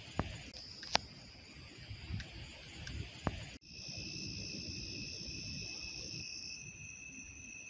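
Insects chirring in steady high-pitched tones, with a low rumble and a few sharp knocks in the first half. A little past halfway the sound changes abruptly to two steady insect tones, one high and one lower.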